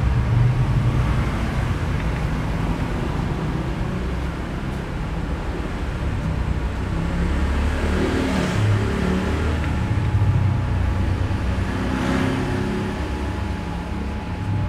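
Steady low rumble of road traffic, motor vehicles running nearby, swelling slightly now and then.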